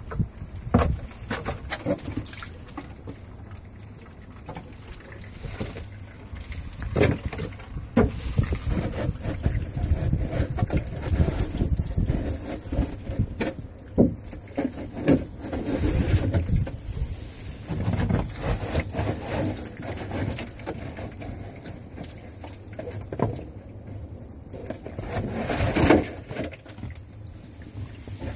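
Water sloshing and dripping from a cut-open plastic gallon water jug as it is handled, with scattered knocks and crackles of the thin plastic.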